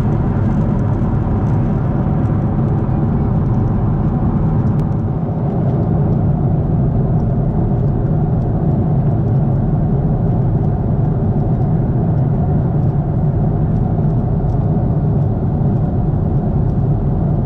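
Steady cabin drone of a Boeing 747-8 in cruise, heard from a window seat: the hum of its GEnx engines blended with the rush of airflow past the fuselage. The noise changes slightly about five seconds in.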